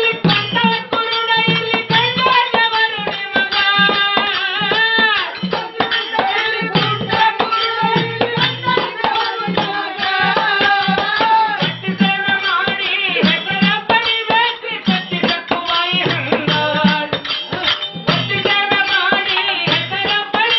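Folk bhajan from North Karnataka: male voices singing in Kannada to harmonium, tabla drums and small hand cymbals keeping a steady beat.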